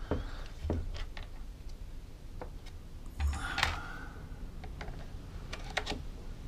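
Irregular light clicks and knocks of a small Ryobi chainsaw's plastic housing and handle parts being handled and pushed together, with tool taps. A louder cluster of knocks with a short scrape comes about three and a half seconds in, and several sharp clicks near the end.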